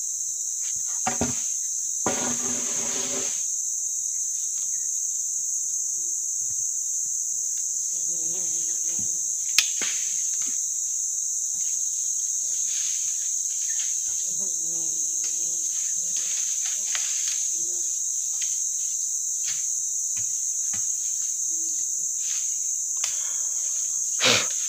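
Steady high-pitched drone of forest insects, broken by occasional knocks and clatters of heavy sawn ulin (Borneo ironwood) planks being handled and set down: a short clattering spell about two seconds in, a sharp knock near the middle and the loudest thump near the end.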